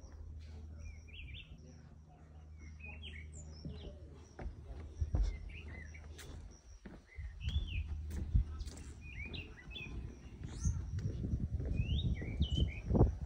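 Small birds chirping over and over in short rising-and-falling calls, over a low steady hum in the first half. From about halfway in come irregular thumps of footsteps on a wooden deck, growing louder toward the end.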